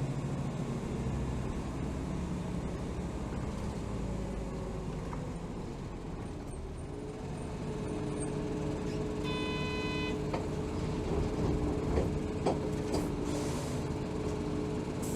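Interior running sound of a 2007 Hino Rainbow HR (BDG-HR7JPBE) city bus: the diesel engine runs steadily. About two-thirds of the way through comes a short electronic tone, followed by a few clicks and a brief hiss of air, typical of the bus's air system.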